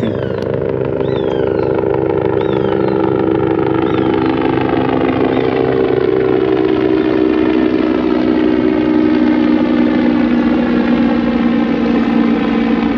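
An engine running steadily, a continuous drone whose pitch slowly falls.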